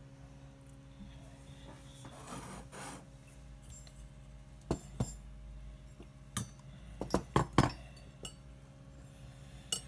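Sterling silver cups and a silver plate handled on a desk: a short rubbing sound, then scattered sharp clinks and knocks as the pieces are picked up and set down, several in quick succession about seven seconds in.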